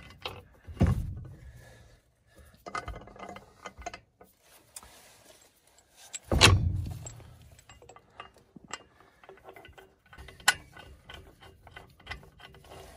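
Lug nuts being handled and threaded onto the wheel studs of a mobile home axle hub: scattered small metal clicks and clinks, with two heavy clunks, one about a second in and a louder one about six seconds in.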